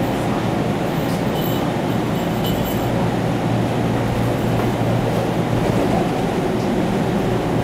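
Inside a 489-series electric limited-express train running at speed: a steady rumble of wheels on track and running gear, with a few faint, brief high-pitched tones about one to three seconds in.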